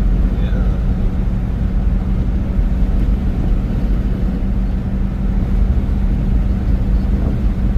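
Steady road noise inside a car cruising at highway speed: a low tyre and engine rumble with a constant hum under it.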